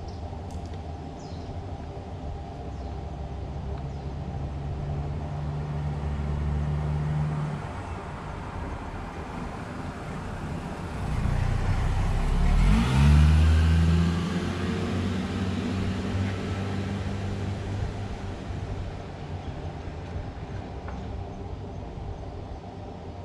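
A car engine approaching, passing close by about 13 seconds in with a drop in pitch, then fading away up the road.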